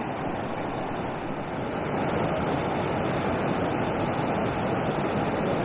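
Steady rushing of water pouring over a river weir, mixed with wind on the microphone; it gets a little louder about two seconds in.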